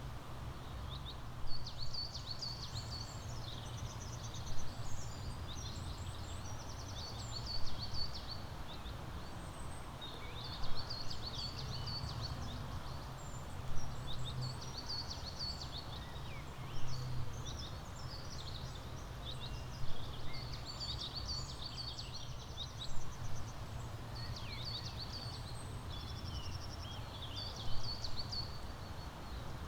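Several songbirds chirping and trilling in high, quick phrases, with the loudest bursts coming about every three seconds over a steady low background rumble.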